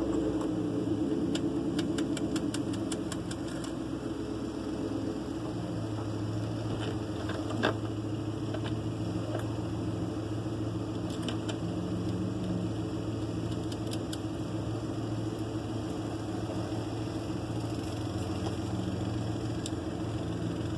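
A motor running steadily, with a few light clicks over it and one sharper click about eight seconds in.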